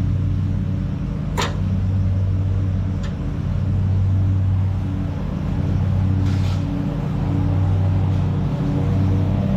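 Engine running steadily at idle, its low hum swelling and easing every couple of seconds. A sharp click comes about a second and a half in, and a short hiss about six seconds in.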